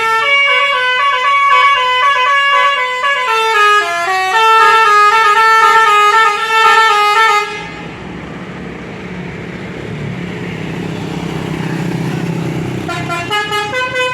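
Telolet basuri musical bus horn playing a melody of stepped notes for about seven seconds. It breaks off into the noise of the bus's engine running, and the horn melody starts again near the end.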